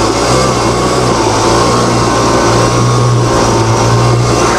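2003 Ski-Doo Legend snowmobile engine running steadily, the hum holding an even pitch.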